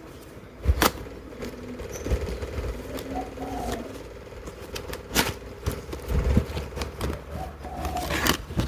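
Cardboard headphone retail box being handled and turned over, with rubbing and scraping of the cardboard and three sharp knocks, about a second in, about five seconds in and near the end, over a faint steady hum.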